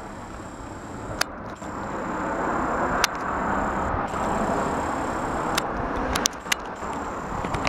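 A car passing by on the road, its tyre and engine noise swelling to a peak a few seconds in and then fading, with a few sharp clicks.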